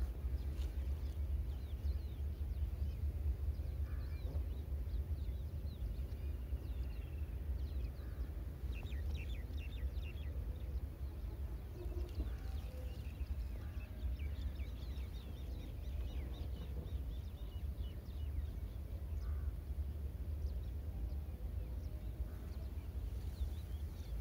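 Ford 1910 tractor's three-cylinder diesel engine running steadily, heard as a low rumble. Birds call over it, most often around the middle.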